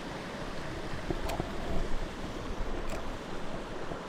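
Mountain stream water rushing steadily, with a couple of faint clicks and some low bumping.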